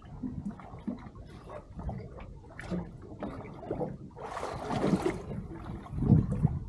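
Water slapping and gurgling against a small boat's hull, with irregular knocks and a louder splash of water about four seconds in.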